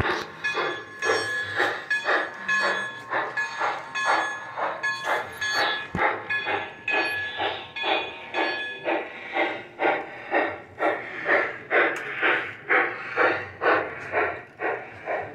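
Sound-equipped large-scale model steam locomotive running, its speaker playing a steady rhythm of steam chuffs, about two to three a second. A steady high tone sits over the chuffs through the first half and then stops.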